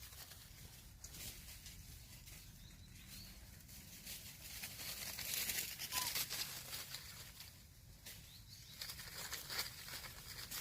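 Rustling and scuffling noise that swells in the middle and again near the end, with a brief faint squeak about six seconds in.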